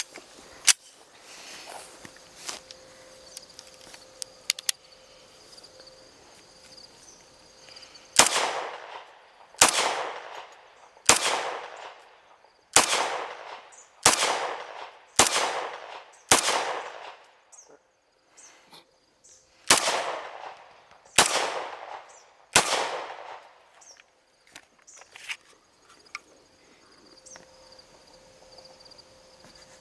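Rifle fired ten times at a steady pace, each shot sharp and trailing off in an echo: seven shots about a second and a half apart, a pause of about three seconds, then three more. A sharp click comes about a second in, before the shooting starts.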